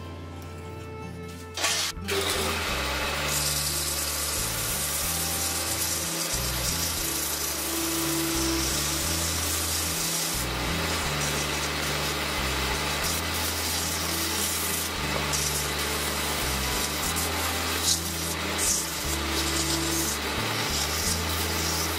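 Background music with a changing bass line. About two seconds in there is a short knock, then a steady rasping hiss of wood being worked on a lathe.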